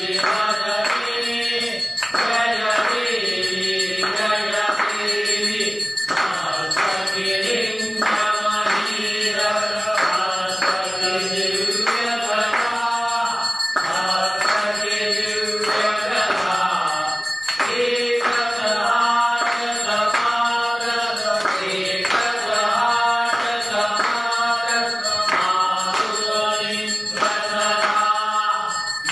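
Hindu devotional chant sung in long held phrases with musical accompaniment.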